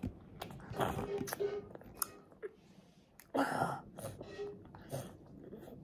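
A toddler chewing broccoli with his mouth full: soft wet smacks and crunches. About three and a half seconds in comes a louder snuffling sniff through a stuffy nose.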